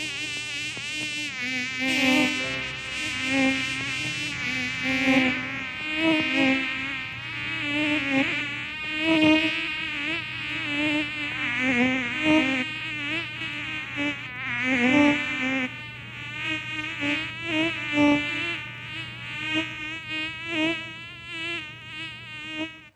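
Mosquitoes whining in a loud, continuous buzz whose pitch wavers constantly.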